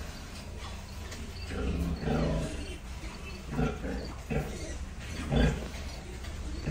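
Nursing sow grunting: a handful of short, low grunts about a second apart while her newborn piglets suckle.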